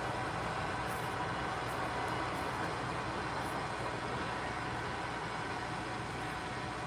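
Steady mechanical drone with a faint hum in it, unchanging throughout.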